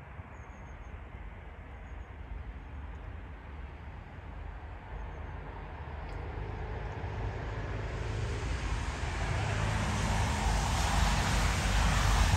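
Wind gusting across the microphone, a low rumbling rush that grows steadily louder.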